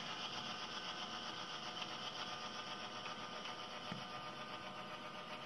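SoundTraxx Tsunami2 sound decoder in an HO scale Walthers Proto GP7 model locomotive, playing a steady diesel prime-mover running sound through the model's small speaker while the locomotive rolls slowly with its brakes applied.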